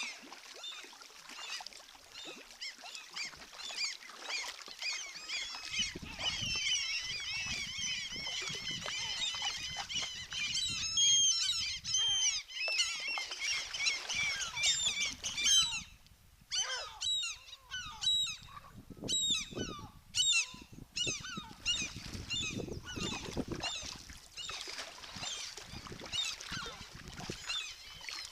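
A colony of gulls calling: many overlapping high-pitched calls forming a dense chorus, which thins after about 16 seconds into separate, louder calls.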